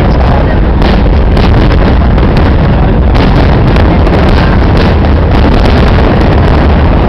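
Loud, continuous low rumbling noise with short sharp cracks scattered through it.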